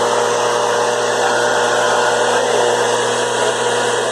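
Leaf blower running steadily at high throttle after spinning up, with a constant whine over a rush of air.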